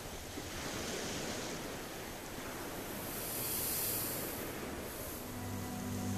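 Ocean surf washing on a shore, a steady hiss that swells and eases. About five seconds in, a low sustained synth chord of ambient music fades in over it.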